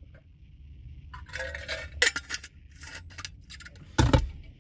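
Drinking from a stainless steel vacuum-insulated bottle: handling noise and light metal clinks, then a single sharp thump about four seconds in.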